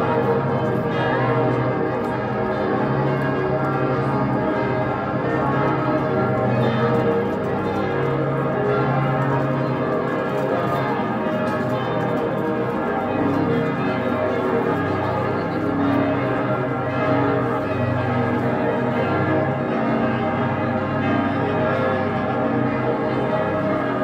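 Many church bells ringing at once, their tones overlapping in a dense, unbroken peal.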